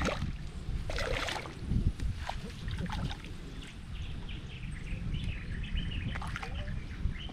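Birds chirping in short calls over a steady low rumble, with two short scuffing noises in the first second and a half.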